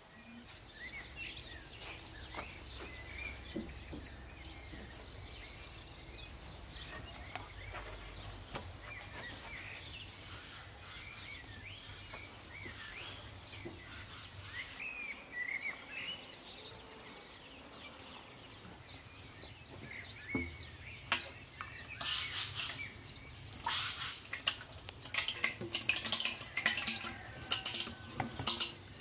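Small birds chirping and twittering, with many short high chirps. From about two-thirds of the way through, irregular knocks and scrapes of a spatula against a metal pot grow louder and denser as thick yogurt is scraped out into a wooden churn.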